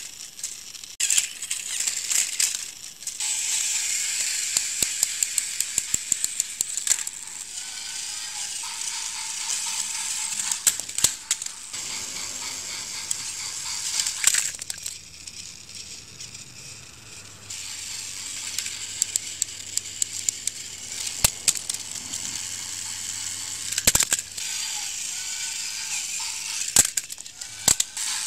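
Small battery-powered toy train motors whirring with their plastic gears rattling, broken by many sharp clacks of the plastic engines knocking and tumbling into each other. The whirring stops and starts abruptly several times.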